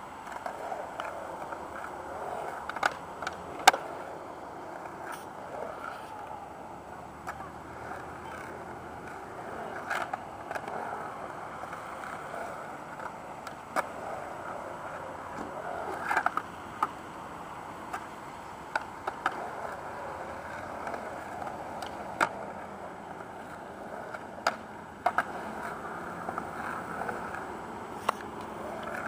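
Skateboard wheels rolling over a concrete skatepark, a steady rolling noise, broken every few seconds by sharp knocks of the board against the concrete, the loudest about four seconds in.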